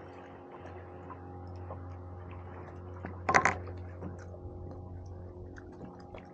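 Background beat music with steady held low notes. About three seconds in, a short loud clatter of two or three quick knocks.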